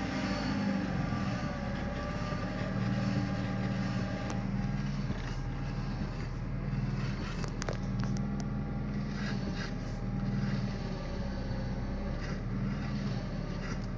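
VW Polo engine running with a whine from the power-steering system that bends up and down in pitch as the steering wheel is turned; the owner suspects the hydraulic pump. A few light clicks about four and eight seconds in.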